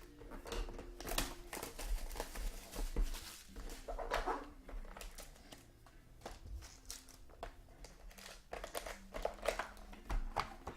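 Trading card packs and cards being handled: crinkling wrapper plastic and quick clicks and rustles of cards, many short irregular sounds.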